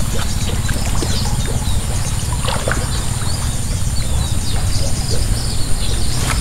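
Rustling of a gill net and grass as climbing perch are picked out of it by hand, over a steady low rumble, with small birds chirping throughout.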